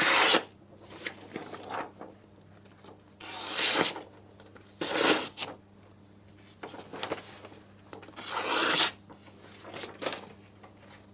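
Several short scraping or rasping strokes, about half a second to a second each, with a steady electrical hum underneath.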